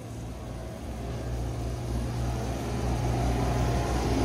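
A motor vehicle's engine running with a low, steady hum, growing louder as it draws closer.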